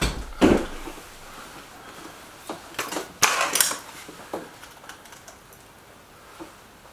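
A thud about half a second in, then a scatter of sharp metallic clicks and clunks between about two and a half and four and a half seconds in: a break-barrel air rifle being handled, cocked and reloaded between shots.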